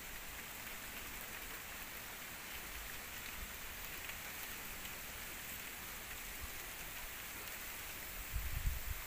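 Steady outdoor background hiss with no clear events, and a brief low rumble about eight seconds in.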